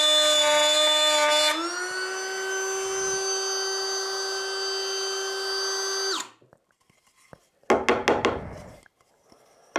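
DeWalt DCW600B cordless trim router mounted in a router table, running with a steady high whine while cutting birch plywood. About a second and a half in, the whine rises in pitch and gets quieter as the workpiece clears the bit and the motor comes up to free speed; it stops abruptly about six seconds in. Near the end comes about a second of scraping noise as the plywood piece is handled.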